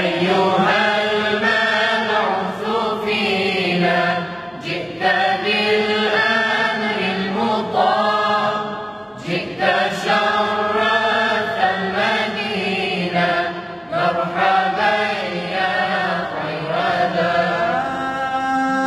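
Male choir of young men singing a shalawat, an Arabic devotional chant in praise of the Prophet Muhammad, in long drawn-out phrases with short breaths between them.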